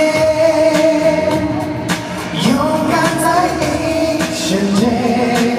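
Pop song sung live over its backing music: a drama theme song sung as a concert sing-along, with the singing voices carrying held melody notes.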